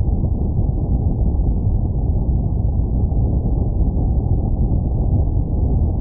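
Wind buffeting the microphone: a steady low rumbling noise that flickers in level throughout.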